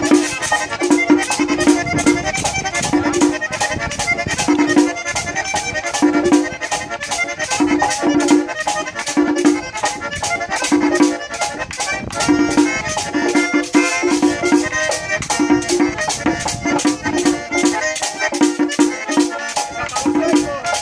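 Merengue típico played live: a diatonic button accordion carries a busy melody over the even scrape of a metal güira, several strokes a second, with drum beats underneath.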